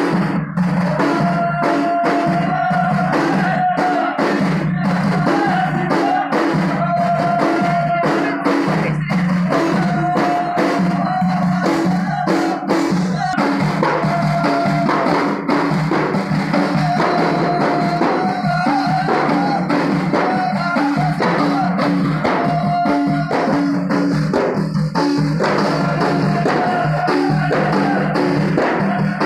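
Ahidous: a line of men beating hand-held frame drums (allun) in a steady, dense rhythm while chanting in unison, the sung phrase returning every few seconds.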